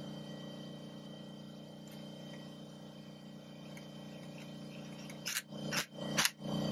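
Air compressor running with a steady hum, and about five seconds in three short, loud bursts from a cordless impact driver on the brake line fitting of an ATV's brake master cylinder.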